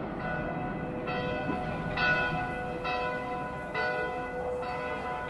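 Church bell tolling steadily, about five strokes a little under a second apart, each ringing on, over a low background rumble.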